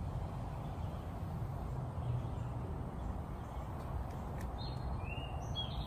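Outdoor background: a steady low rumble, with a few short bird chirps in the last second or so.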